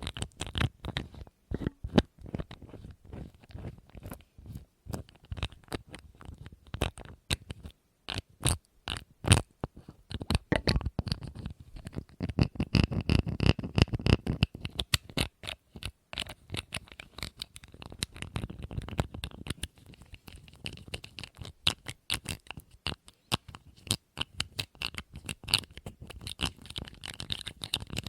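Rapid, dense tapping on a hard object, many quick taps a second with a louder stretch in the middle, and a faint ringing tone from about twelve seconds in.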